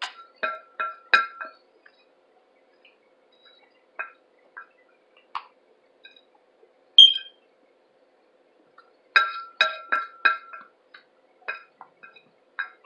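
Metal spoon clinking and scraping against a plate heaped with cornstarch: quick runs of ringing taps in the first second or so and again near the end, with scattered single taps between and one sharp, louder click about seven seconds in.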